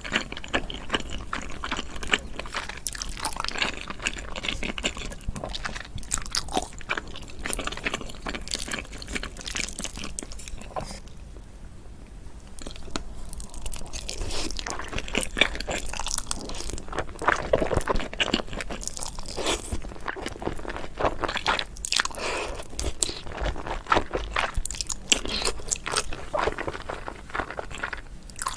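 Close-miked eating: crunchy bites and chewing, with a short quieter pause partway through.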